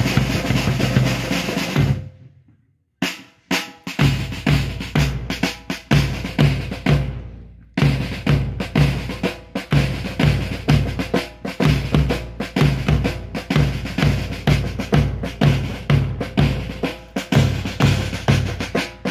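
Marching drums keeping time for a rhythmic rifle drill: a fast drum roll that stops about two seconds in, a short pause broken by two single strokes, then a steady march beat of bass drum and snare at about two beats a second.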